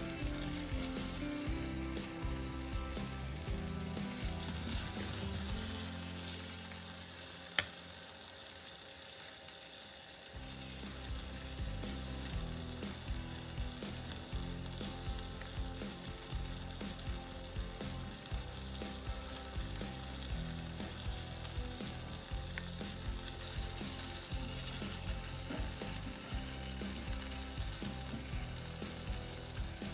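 Chicken pieces sizzling as they fry in oil and glaze in a nonstick pan, with a spatula moving and turning them. There is one sharp tap about seven or eight seconds in.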